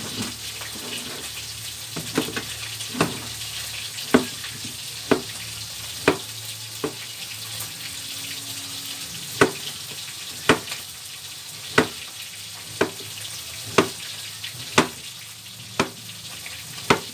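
Kitchen knife chopping peeled patola (luffa) on a plastic cutting board, a sharp chop about once a second, over the steady sizzle of fish frying in oil.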